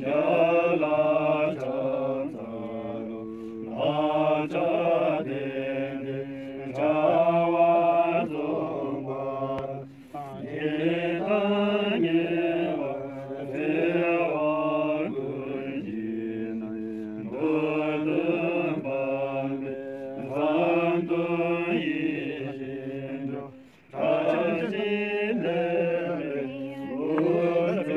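Tibetan Buddhist monks of the Drukpa lineage chanting prayers together in unison, a steady melodic recitation in long phrases with brief breaks for breath about ten seconds in and again near the end.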